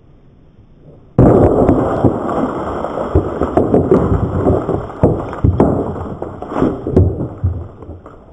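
A small explosive charge going off in a dirt mound: a sudden blast about a second in, then several seconds of dense noise with scattered sharp cracks and pops that fade near the end.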